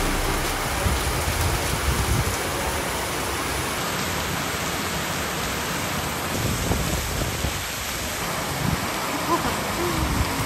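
Heavy rain pouring down: a steady hiss.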